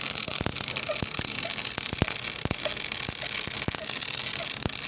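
MIG welding arc running steadily: a continuous hiss broken by many irregular crackling pops.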